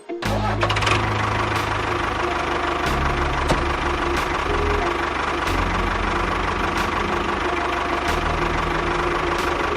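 An engine, most likely a mini tractor's, running steadily; it cuts in suddenly at the start.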